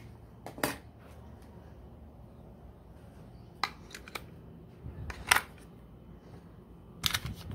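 Batteries being fitted into a plastic air-conditioner remote control: a handful of short, sharp plastic clicks spread out over several seconds, over a faint steady low hum.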